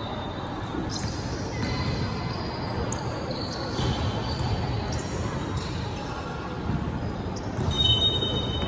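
Basketball bouncing on a gym's hard floor during a game, with a few short high squeaks and voices echoing in the large hall.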